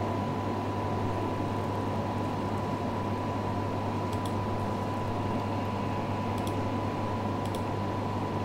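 Steady hiss and low hum of room noise, with a faint steady high tone above it and a few faint clicks.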